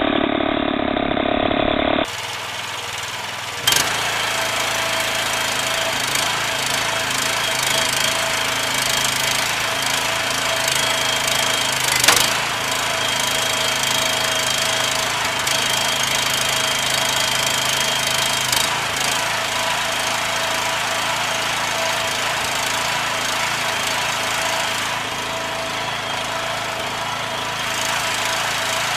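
Woodworking machinery running with a steady mechanical noise, a sharp knock about twelve seconds in.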